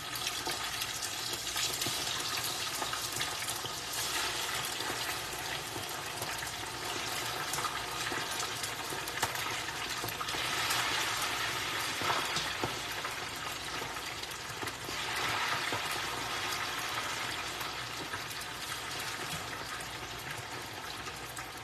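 Raw, unbreaded chicken wings deep-frying in a pot of hot oil: a steady, dense bubbling sizzle that swells a few times as more wings are lowered in with tongs.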